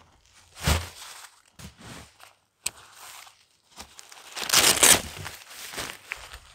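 Boots crunching in snow, then heavy hot-tent fabric being unrolled and pulled about, rustling and crinkling in uneven bursts, loudest about four and a half seconds in.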